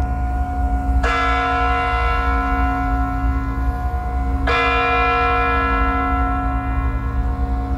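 A large clock bell striking midnight in slow, single strokes about three and a half seconds apart, each stroke ringing on until the next, over a steady low rumble.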